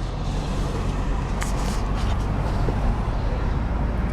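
Car driving along, heard from inside: a steady low engine hum with road and tyre noise.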